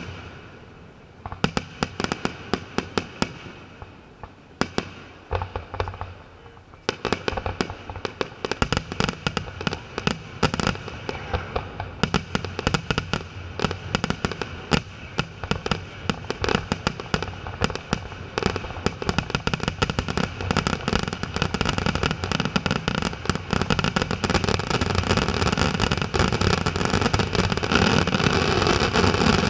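Aerial fireworks shells bursting: scattered sharp bangs at first, coming faster after about seven seconds and building into a dense, almost continuous barrage that grows louder toward the end.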